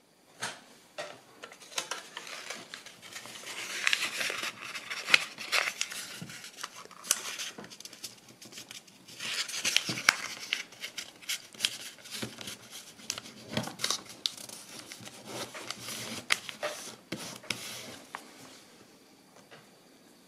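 Kraft paper being folded and creased by hand: crinkling and rustling with many sharp crackles, loudest about four and ten seconds in, dying away near the end.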